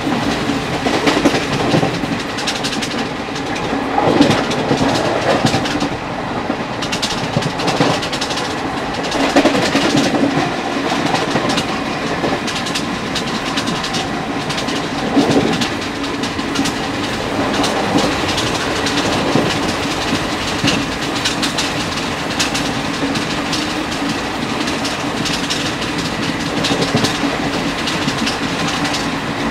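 ICF passenger coach running on the rails at speed: the wheels clatter over rail joints in a run of clicks, over a steady rolling rumble and wind rush, with a few louder swells.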